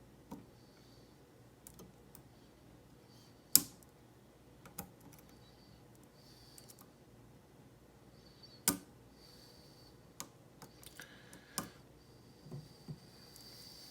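Lock pick working the pins of a Schlage SC1 pin-tumbler cylinder held in a false set: scattered small clicks, with two sharp, louder clicks about three and a half and nine seconds in.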